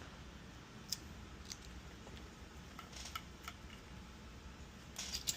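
Faint, scattered light clicks and taps from handling a small circuit board and tools, with a cluster near the end, over a low steady hum.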